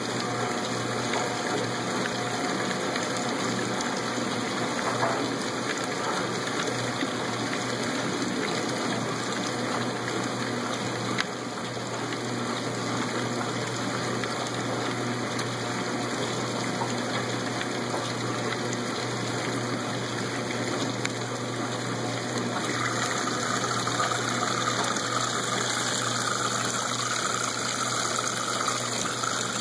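1986 Lady Kenmore top-load washer agitating a sudsy load: a steady motor hum under the slosh and swish of water and clothes. About two-thirds of the way through, a higher rushing sound joins in and continues.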